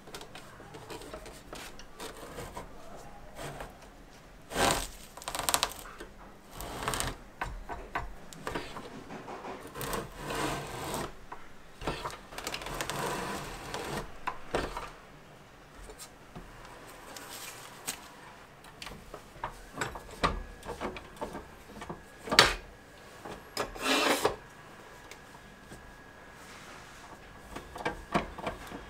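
Manual stack guillotine paper cutter trimming the edges of a book's textblock: separate rasping scrapes as the blade shears through the paper and paper is shifted on the bed, with knocks in between. The loudest is a sharp knock about two-thirds of the way through.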